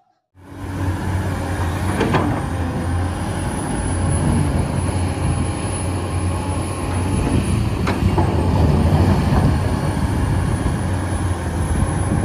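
Large Caterpillar hydraulic excavator digging rock: its diesel engine runs steadily under load with a deep hum. Two knocks come through, about two seconds in and again near eight seconds.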